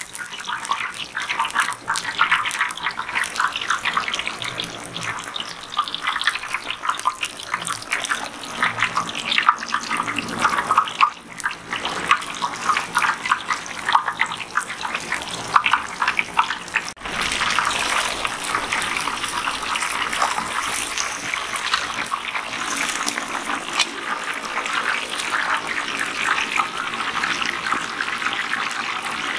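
Hot oil sizzling around a whole kendai fish deep-frying, a dense, steady crackle.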